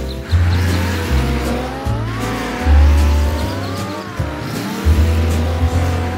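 Cartoon vehicle sound effects over background music: a bass line stepping between held notes, with gliding tones that rise and fall several times.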